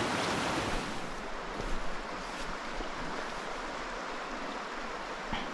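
Water spilling through a beaver dam, then, after a cut about a second in, the steady flow of a small stream.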